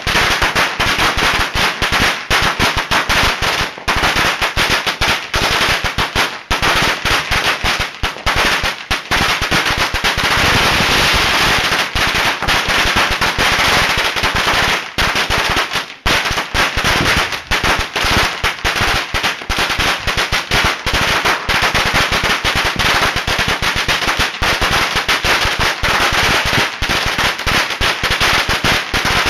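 A string of firecrackers going off in a rapid, unbroken run of sharp bangs, packed most densely together about halfway through.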